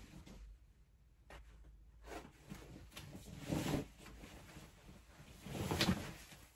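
Rustling and handling noises from clothes being moved about, with two louder swishes about three and a half and six seconds in.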